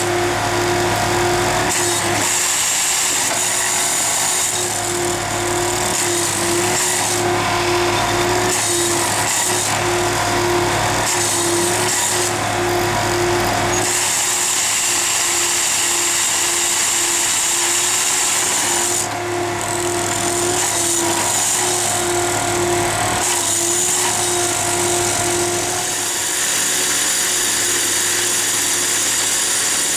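Railway track-tamping machine working its tamping tines into the ballast: a loud, steady mechanical drone with a low hum and a tone that pulses about twice a second, its hiss changing every few seconds.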